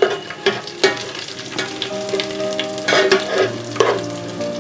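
Whole cumin seeds, dried red chillies and bay leaves sizzling and crackling in hot mustard oil, stirred in a large pot, with sharp scrapes and clicks of the stirring against the pot.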